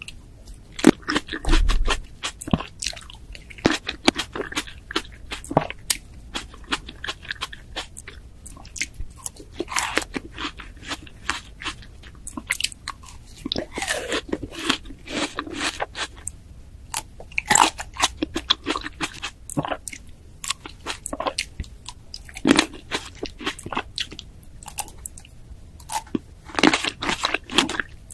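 Crisp bites into raw pear and wet chewing close to the microphone, with irregular crunches coming in clusters.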